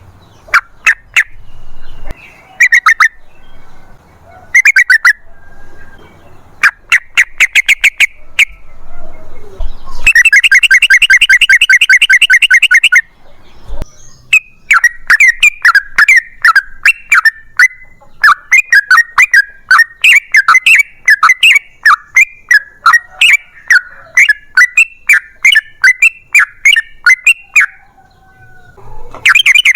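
Yellow-vented bulbul (trucukan) singing in short bubbly phrases. About ten seconds in comes a fast rattling trill lasting some three seconds, followed by a long unbroken run of quick chattering notes, and another fast trill starts right at the end.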